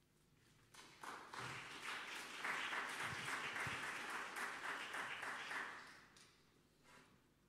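Audience applause that starts about a second in, builds, and fades out about a second before the end.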